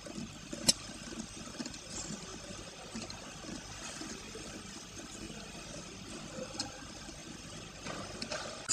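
ZV-240 liquid packaging machine running: a low, steady mechanical rumble with scattered light ticks and one sharp click under a second in.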